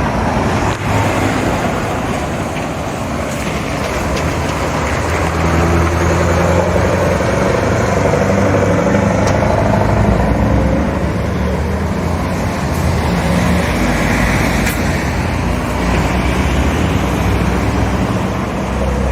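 Straight-piped V8 diesel of a Scania T144 truck running, its low exhaust note rising and falling in pitch in steps.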